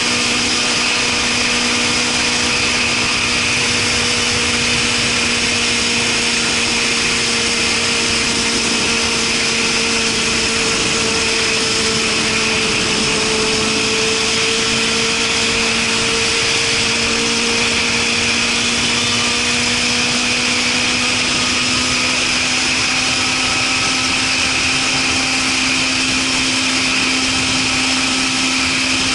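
Suzuki Katana motorcycle with a Super Combat aftermarket muffler, ridden at a steady pace: an even engine note that sags slightly about halfway through and rises again, under a constant rushing noise.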